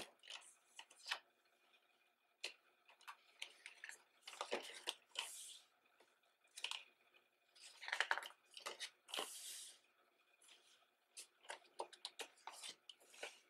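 Pages of a desk calendar being flipped over by hand: irregular soft papery swishes and light clicks, with longer rustles about four and eight seconds in.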